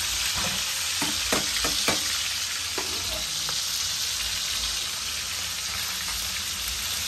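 Pieces of pork frying in hot oil in a frying pan, sizzling steadily, with a few sharp clicks in the first three seconds.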